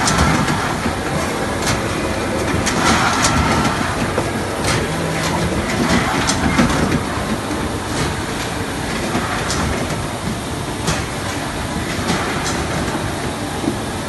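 Poultry processing-line machinery running, a MOBA Maxipack automatic chicken bagging machine among it: a steady mechanical din with irregular sharp clacks every second or two.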